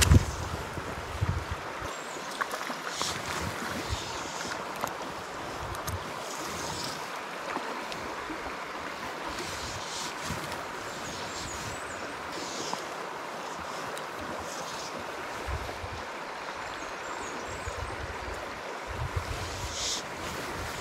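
Small rocky stream running in a steady rush of water, with low wind buffets on the microphone about the start and again near the end.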